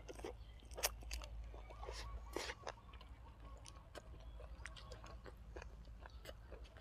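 A person chewing food close to the microphone, with wet mouth clicks and smacks scattered through, over a low steady hum.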